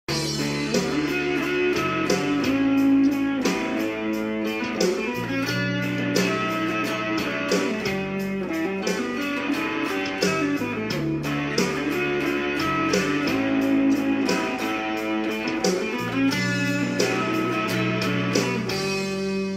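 Electric guitar played over a backing track, with a bass line that changes every second or two, a steady beat, and a chord pattern that repeats every five to six seconds.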